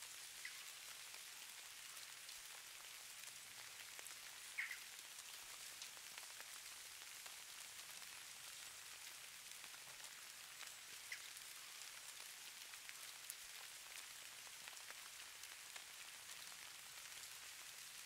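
Faint, steady hiss of light rain falling, with a few brief faint high chirps about half a second, four and a half seconds and eleven seconds in.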